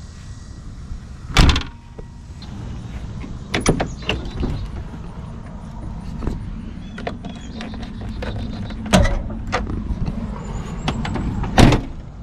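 Doors and liftgate of a 1991 Jeep Cherokee being worked, heard as a series of clunks and thumps with lighter clicks and knocks between them. The loudest thumps come about a second and a half in and again near the end, over a steady low rumble.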